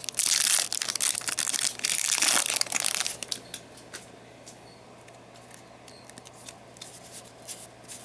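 A Yu-Gi-Oh booster pack's foil wrapper being torn open and crinkled for about three seconds, then softer clicks and rustles as the cards are handled.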